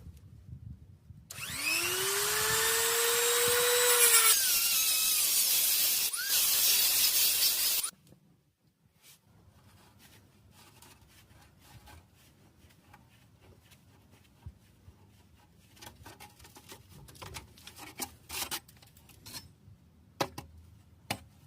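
A power tool spins up with a rising whine and runs for about six seconds, then stops abruptly. After it come quiet, scattered clicks and knocks of work.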